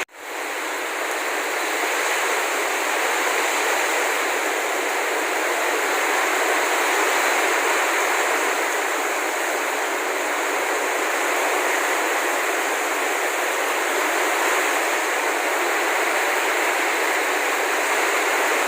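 Heavy tropical downpour: rain pouring down hard and steadily as a dense, even hiss.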